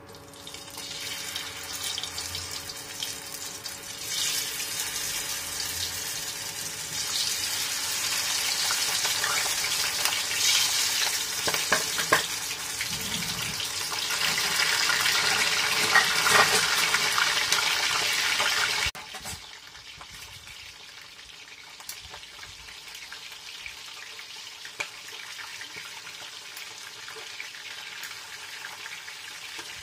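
Batter-coated green chilies frying in hot oil: a steady sizzle with some crackling. About two-thirds of the way through it drops suddenly to a softer sizzle.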